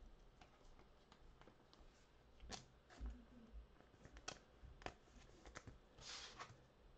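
Faint scattered clicks and taps of trading cards and card packs being handled, with a short rustle about six seconds in.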